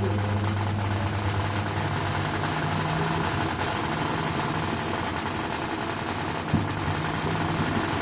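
Haier top-loading washing machine running with a steady low motor hum and a loose mechanical rattle over it, with a sharp click about six and a half seconds in as the motor drive engages again. The noise is from a one-rupee coin that had got into the machine.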